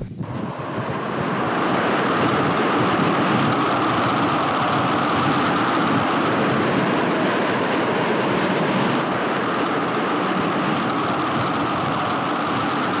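Steady rushing noise of a storm, wind and heavy rain, swelling up over the first couple of seconds and then holding even.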